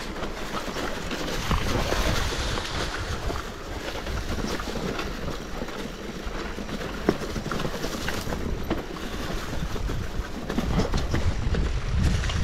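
Electric mountain bike being ridden over a rough dirt trail: tyres rumbling over the ground, with frequent small rattles and knocks from the bike and wind on the microphone.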